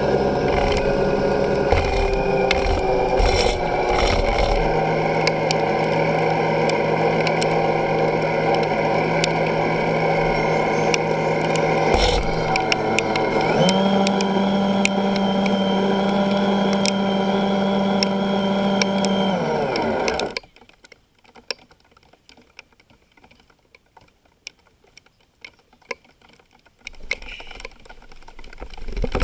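A motor running with a steady hum and scattered clicks. About 14 seconds in it shifts to a stronger, higher tone, then winds down and stops about 20 seconds in. Another motor-like sound starts to build near the end.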